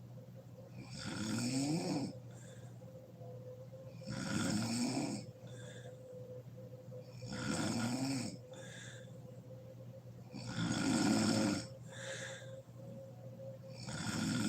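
A sleeping woman snoring: five loud snores about three seconds apart, each followed by a short, softer breath.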